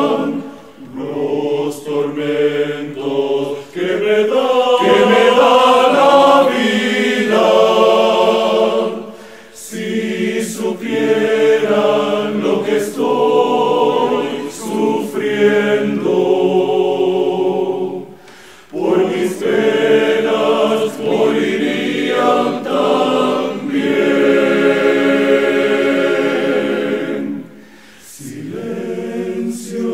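Men's choir singing a slow song in sustained harmony, in long held phrases broken by short pauses.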